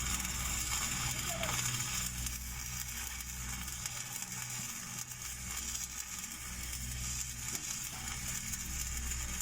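Stick (SMAW) welding arc crackling and sizzling steadily as a downhill pass is run on large-diameter pipe, with a steady low hum underneath.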